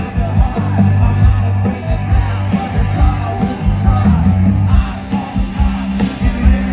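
Live rock band playing loudly over a festival PA, with heavy bass, steady drum hits and a singer's voice on top.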